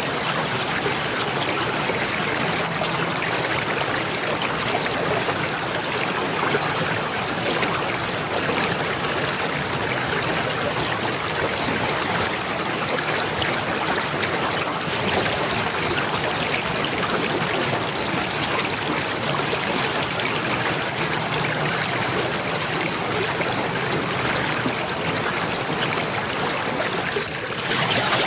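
Water flowing and trickling steadily, like a small stream over stones. There is a brief dip and change in the flow near the end.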